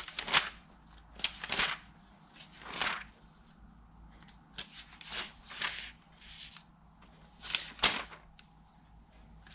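Pages of a paper workshop manual being turned and handled: a series of short, uneven rustles and flips.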